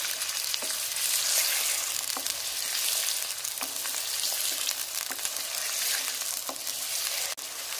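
Raw mutton pieces sizzling steadily as they fry in hot oil in a nonstick pan, stirred and turned with a spatula that taps and scrapes the pan every second or so.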